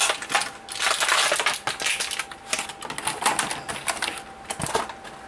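Rigid clear plastic blister packaging crackling and clicking in quick, irregular snaps as small Bakugan Nano figures are popped out of it, with a sharper knock near the end.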